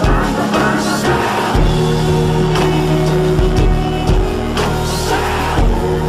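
Background music: a song with singing over bass and steady held notes.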